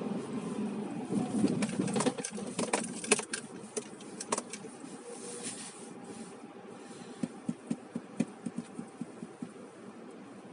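Inside a car on the move: a low engine and road rumble that fades after about two seconds, then a run of sharp clicks and knocks in the cabin, and a string of light quick ticks near the end.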